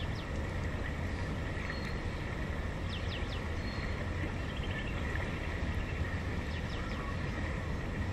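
Steady outdoor background noise with a low rumble, over which small birds give a few short, quick descending chirps, about three seconds in and again near the end.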